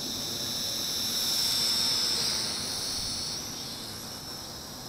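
Mould King 33043 Super F micro quadcopter's motors and propellers whining in flight: a high, steady whine that grows louder about a second in, then fades as the drone climbs away.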